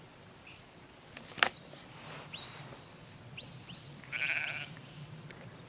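Sheep bleating from the flock, loudest about four seconds in, among a few short high whistled notes that rise and then hold. A single sharp click about a second and a half in is the loudest sound.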